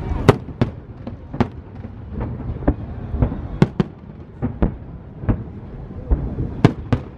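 Aerial firework shells bursting in quick succession: a dozen or more sharp bangs at uneven intervals over a low rumble, the loudest right at the start and again near the end.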